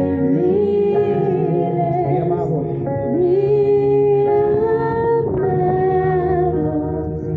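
Worship music: a woman sings long held notes, some with vibrato, over steady sustained chords.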